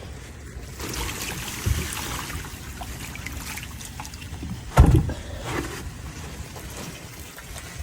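Water sloshing and splashing in a nearly empty chicken waterer as it is handled, with a knock about two seconds in and a loud thump about five seconds in.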